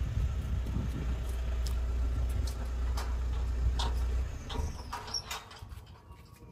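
A steady low rumble with scattered knocks and scrapes as a top-loading washing machine is shuffled across a concrete driveway. The rumble stops about four seconds in, and a few sharp knocks follow as the machine is set down.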